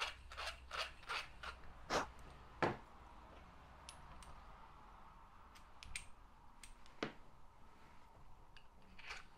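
Hand deburring tool scraping the sharp edge off the bore of an aluminium suspension part in short strokes, about three a second, with two louder strokes about two seconds in. A quieter stretch follows with a few light metal clicks as the part and its bronze bush are handled, and the scraping strokes start again near the end.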